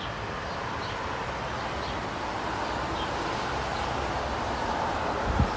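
Wind buffeting the phone's microphone, with the steady hiss of traffic on a wet street underneath that slowly grows louder. A few heavy low thumps of wind on the microphone come near the end.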